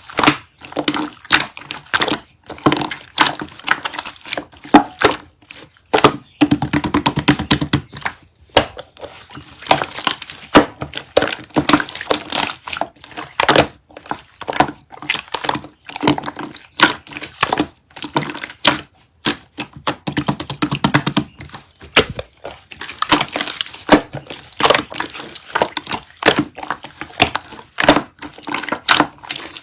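Slime being squeezed, pressed and stretched by hand, giving a dense stream of sticky clicks, pops and crackles. Twice, about a quarter of the way in and again about two-thirds through, it breaks into a fast run of tiny pops.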